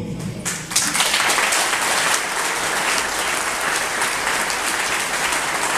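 Audience applauding: a dense, steady round of clapping that starts about a second in.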